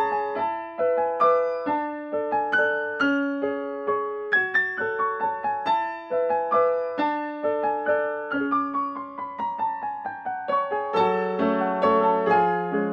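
Background keyboard music playing a melody of separate, gently decaying piano-like notes. About eleven seconds in, lower notes join and fill it out.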